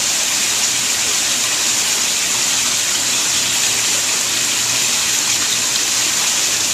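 Steady rushing of water around a tank or pond of koi, an even, unbroken hiss.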